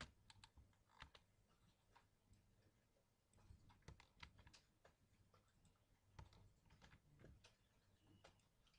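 Faint computer keyboard keystrokes and mouse clicks: scattered single clicks at an irregular pace.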